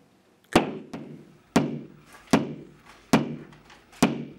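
Claw hammer tapping wall anchors into drilled holes in the wall: five sharp knocks about a second apart, each with a short ring.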